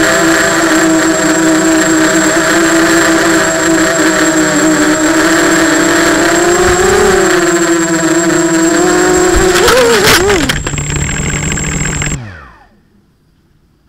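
H250 mini FPV quadcopter's motors and propellers whining steadily, heard from its onboard camera, the pitch wavering slightly as it flies. About ten seconds in it crashes with a short burst of knocks. About two seconds later the motors wind down in a falling whine and stop.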